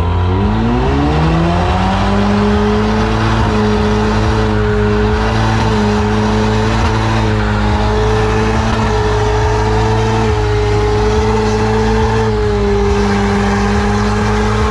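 Car engine revving up over about two seconds and then held at high, steady revs for a burnout, with the tires spinning and squealing on the pavement.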